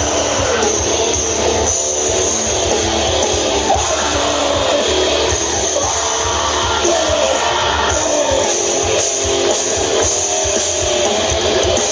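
A rock band playing loud and live, with electric guitars over a steady drum beat.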